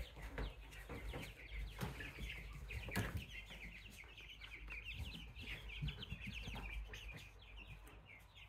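A brooder full of young chicks, egg-layer and meat-bird chicks together, peeping continuously: many overlapping high, falling cheeps, with a few knocks among them.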